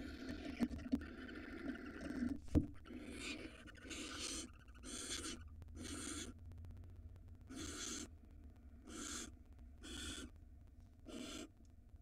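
Barn owls in a nest box: a few knocks early on, the sharpest about two and a half seconds in as the second owl comes in, then a row of short hissing calls, about one a second.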